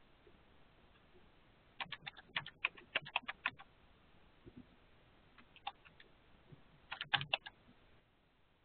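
Computer keyboard being typed on: a quick run of about a dozen keystrokes, a few single keys mid-way, then another quick run near the end, as numbers are entered.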